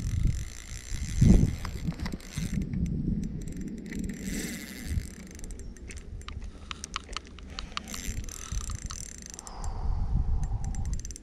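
Spinning reel being wound to retrieve a lure, its gears and handle giving a run of fast light ticks, over a low rumble.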